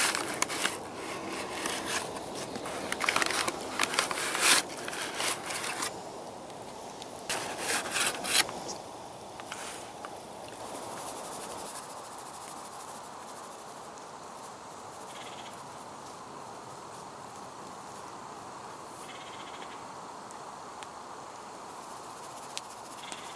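Rustling of a paper flour bag and handling of ingredients over a steel mixing bowl: a run of short, sharp rustles for the first eight seconds or so, then mostly a steady soft hiss with only a few faint handling noises.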